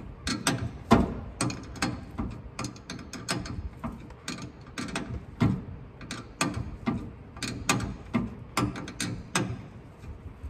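Hand ratchet wrench clicking in quick, uneven runs of strokes as drive shaft bolts are tightened.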